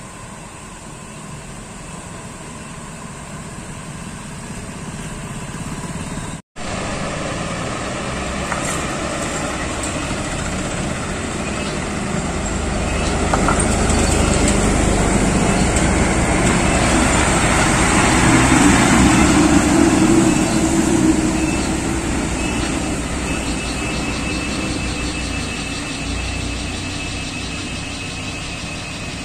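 Lorry engines running as heavy trucks pass through a hairpin bend. The sound builds and is loudest about two-thirds of the way through as a truck passes close, then eases off. The sound cuts out for an instant about six seconds in.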